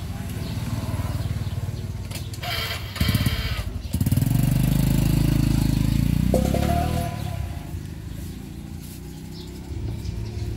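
An engine running close by, swelling to its loudest about four seconds in and fading away after about seven seconds.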